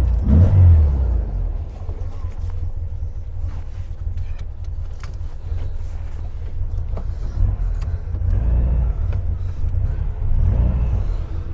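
1974 VW 1303S Beetle's 1915cc air-cooled flat-four engine, just started, surging briefly in the first second and then idling with a wavering, uneven note, heard from inside the cabin. The owner says the engine idles poorly from a blocked idle jet until it warms up.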